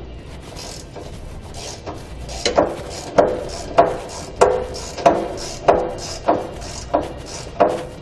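Hand ratchet with a 13 mm socket working a bolt loose: after a quiet start, about nine even ratchet strokes, a little under two a second, each a short sharp clicking burst with a faint ring.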